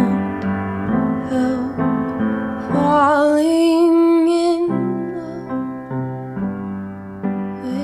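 Soft background music: piano chords with a voice singing, holding one long wavering note about three seconds in.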